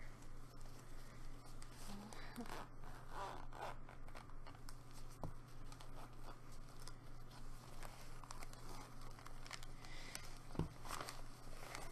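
Blood pressure cuff being handled: scattered rustles and short rips of its hook-and-loop fastener, over a steady low hum.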